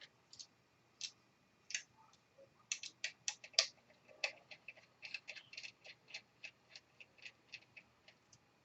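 Irregular light clicks and ticks of a small screwdriver and screws working on a laptop's plastic case, several a second in places.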